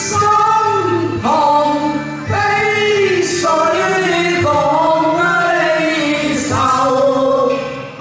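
Cantonese opera (yuequ) duet: a man and a woman singing long, gliding, ornamented phrases into handheld microphones over steady instrumental accompaniment, with brief breaks between phrases.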